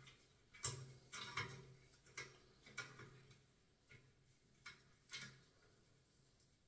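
Faint, irregular small clicks and taps, about eight of them, dying away after about five seconds. They come from gloved hands handling a small brass radiator valve tailpiece.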